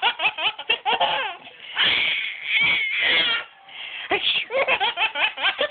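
A five-month-old baby laughing hard, in quick runs of short breathy laughs, with a longer held high squeal about two seconds in.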